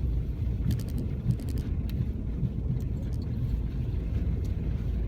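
Steady low rumble of a pickup truck driving slowly in four-wheel drive on a snowy road, engine and tyre noise heard from inside the cab. A few faint light clicks come about a second in.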